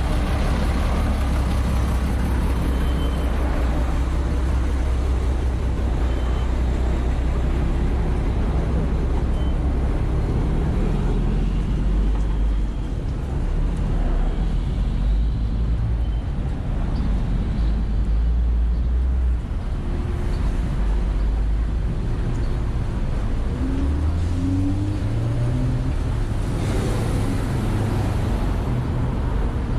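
Wind buffeting the microphone with a heavy, steady low rumble, over passing road traffic; from about 23 s in, a vehicle engine rises in pitch as it speeds up.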